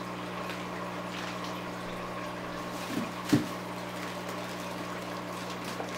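Steady low electrical hum with a faint hiss. Two soft knocks come about halfway through, as a hand reaches into the cardboard box of packed fish bags.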